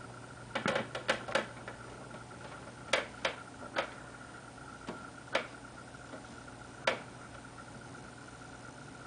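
A cat's claws clicking and tapping on a plastic computer monitor casing as it shifts its feet: a quick run of four clicks about half a second in, three more around three seconds, then single taps, over a steady faint electrical hum.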